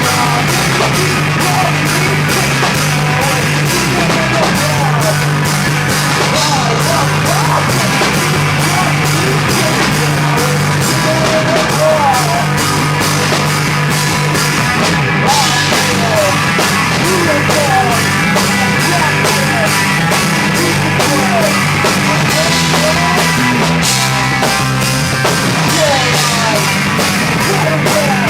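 Live rock band playing loud and without a break: a drum kit keeping a fast, even beat under electric guitars and bass.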